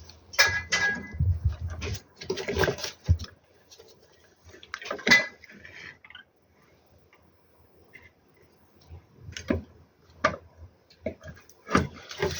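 Clicks, knocks and light clatter of circuit boards, parts and tools being handled while the control card is fitted back into the inverter. The handling is busiest in the first half, goes quiet for a couple of seconds, then ends with a few sharp clicks.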